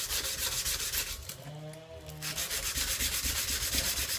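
Sandpaper wrapped on a paint stick being rubbed back and forth over a steel tanto knife blade in quick, even strokes, about five a second, with a short break about a second in.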